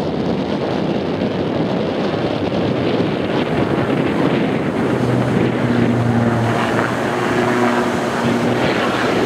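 Heavy wind buffeting the microphone, with the drone of an Extra 300 aerobatic plane's engine and propeller. About five seconds in, a steady engine note comes through clearly over the wind.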